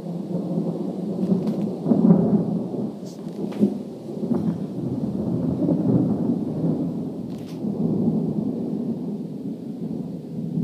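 Long rolling thunder rumble that starts suddenly, is loudest about two seconds in and rolls on for some ten seconds before dying away near the end.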